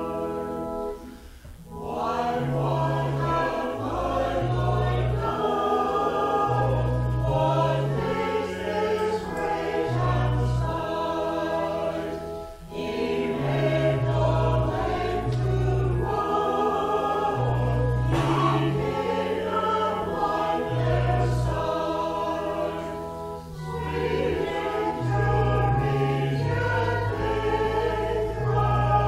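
Small mixed church choir of men and women singing together, with short breaks between phrases about a second and a half in and again about halfway through.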